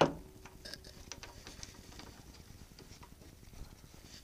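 A sharp metallic clack at the start, then faint scattered ticks and clicks: the Atlas lathe's cast-iron change gears being handled and wiggled on their stud.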